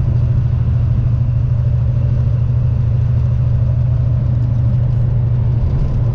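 Volvo VNL semi-truck running at highway speed, heard from inside the cab: a steady, loud low engine drone with road noise.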